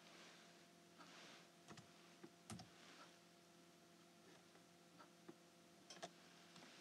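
Near silence: faint room tone with a few scattered, faint clicks, the loudest about two and a half seconds in.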